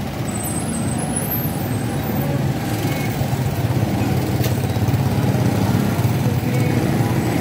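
Steady low engine rumble of motor-vehicle street traffic running close by, growing a little louder in the second half.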